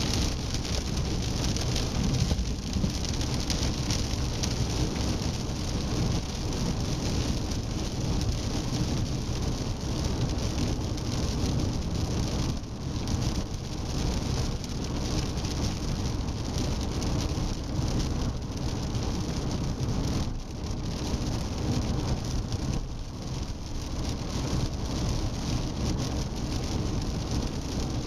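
SEAT Leon 1M driving on the road: a steady rush of tyre and road noise with a low rumble underneath, wavering slightly in level.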